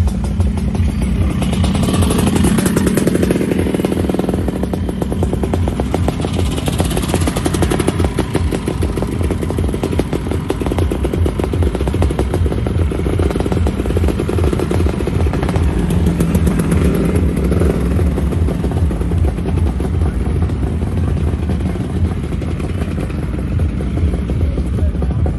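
Motor scooter engines running close by as scooters ride slowly past, the engine note rising and falling with the throttle.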